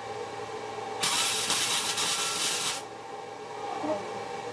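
Welding arc crackling in one burst of nearly two seconds, starting about a second in, as weld fills a small hole in the steel.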